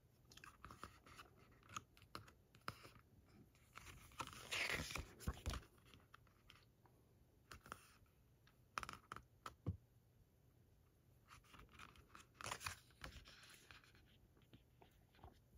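Faint paper handling: pages of a glossy ring-bound book rustling and being turned, with scattered light clicks and a longer rustle about four to five seconds in and another around twelve seconds.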